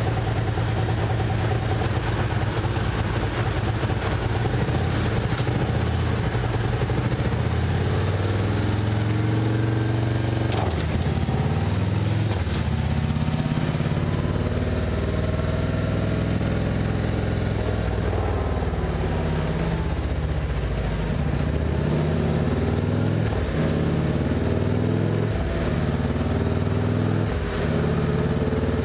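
Harley-Davidson 121-cubic-inch V-twin of a 2024 CVO Road Glide ST running through a Chromeworks 2-into-2 exhaust with louvered baffles. It idles steadily, then from about eight seconds in it is revved up and down again and again, with several quick blips near the end.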